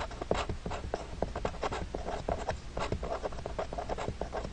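A pen writing on paper: a quick run of short scratching strokes as a fraction and an equals sign are written out.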